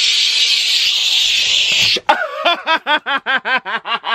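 A man's loud, long hissing breath, then from about two seconds in a rapid theatrical cackle of short pitched 'ha' sounds, about five a second, each rising and falling in pitch.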